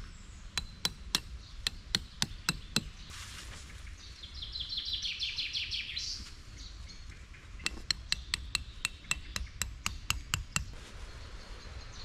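Tent stakes being driven into the ground with the back of a hatchet: a run of about eight sharp strikes, then after a pause a faster run of about a dozen. Between the two runs a bird sings a short trill of quickly repeated notes.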